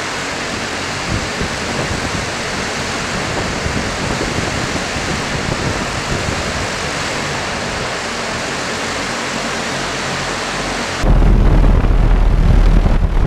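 Volocopter VC200 electric multicopter hovering: its 18 rotors make a steady, even whoosh. About eleven seconds in it turns suddenly louder, with a deep rumble of rotor wash on the microphone close to the aircraft.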